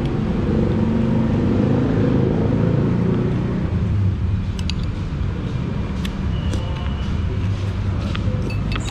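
Street traffic: motor vehicles running close by, a steady low rumble that is loudest in the first few seconds. A few light clicks and clinks come in the second half.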